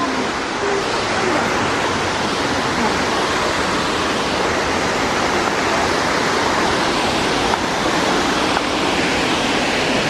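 Tinago Falls, a tall waterfall plunging into its pool, heard close by as a loud, steady, unbroken rush of falling water.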